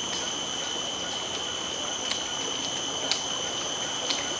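Steady insect chorus, an even high-pitched drone at two pitches, with a few faint clicks about two, three and four seconds in.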